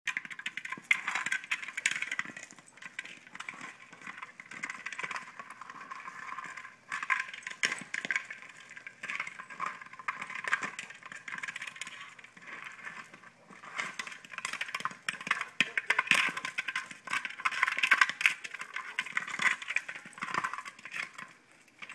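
Gravel crunching and rattling under a dog's paws and a rolling toy egg being pushed across a gravel driveway, in irregular spells of dense crackling with quieter gaps between.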